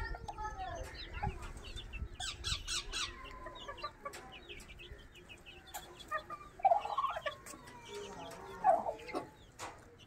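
Chickens clucking, with many short, high-pitched chirps throughout and a couple of louder clucks about seven and nine seconds in.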